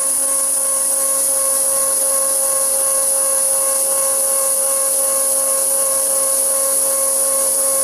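Stepper motor on the Z-axis of a Grizzly G0752 lathe's BDTools CNC conversion driving the carriage along its ball screw during a jog, a steady motor whine with several fixed tones. The motors are not yet tuned and the ball screw is still unoiled.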